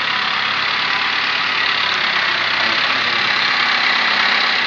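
Steady machinery noise filling a factory workshop, an even hiss-like din with a faint steady whine in it.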